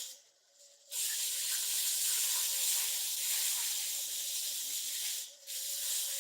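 Pressure-washer water jet spraying with a steady hiss, starting about a second in, dropping out briefly near the end and then picking up again. A faint steady hum runs underneath.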